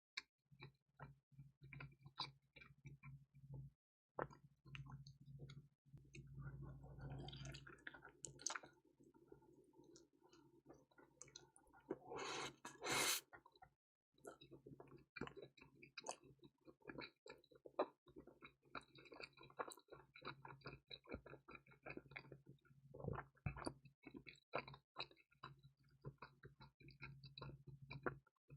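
Close-up eating sounds of a person chewing crispy pizza: many small mouth clicks and wet chewing noises, with one louder, noisier sound about twelve seconds in.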